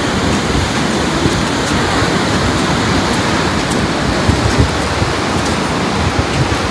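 Ocean surf breaking and washing against rocky shoreline, a steady rushing noise, with wind on the microphone.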